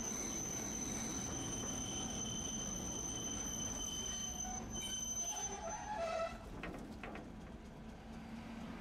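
Tosaden streetcar running on its track, with a high steady wheel squeal over the rumble that stops about six seconds in, followed by a few sharp clicks.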